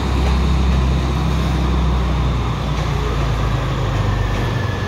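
Diesel train engine running steadily under power as the train accelerates out of the station, heard from on board as a loud, even low rumble. A faint thin high whine comes in near the end.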